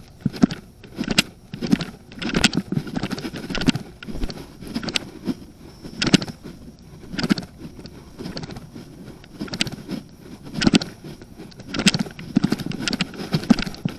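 Keys and gear jangling, with irregular sharp clicks and knocks about once a second over a low rumble.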